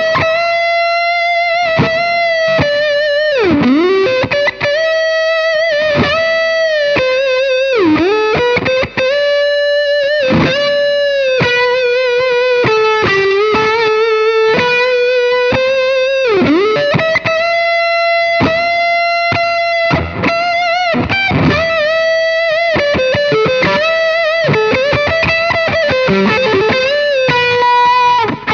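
Electric guitar with humbucker pickups played through a Caline Jaguar Classic High Gain Distortion pedal, set for a lead tone with the bias low and the mids up. It plays a single-note solo of long held notes with vibrato and several swooping slides down in pitch, in a sustaining, cutting high-gain tone.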